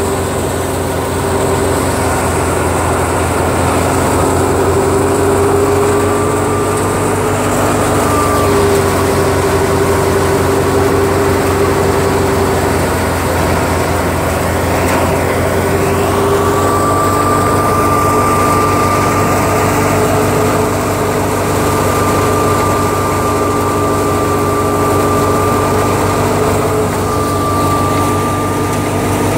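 Tractor-driven wheat thresher running steadily: the tractor engine and the threshing machine together make a loud continuous drone with a steady higher whine that wavers slightly in pitch.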